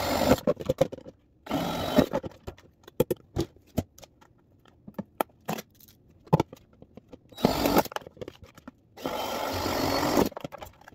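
Cordless drill with a paddle bit boring holes through the side of a thin plastic storage bin, running in short bursts: one stops just after the start, another comes at about two seconds, and two more near the end. Between the bursts, clicks and knocks of the plastic bin being handled.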